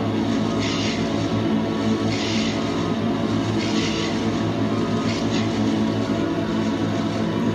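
Live electronic sampler music: a dense, steady low drone of layered sustained tones, with short rushes of hiss recurring about every one and a half seconds.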